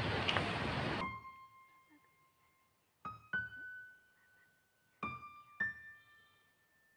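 A steady rush of noise cuts off abruptly about a second in, leaving soft piano notes: two struck about three seconds in and two more about five seconds in, each left to ring.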